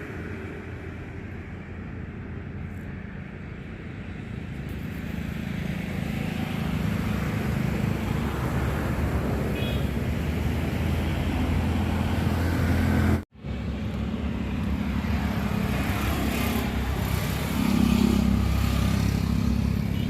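Street traffic noise: motor vehicle engines running and passing, growing louder about six seconds in, with a brief sudden dropout about thirteen seconds in.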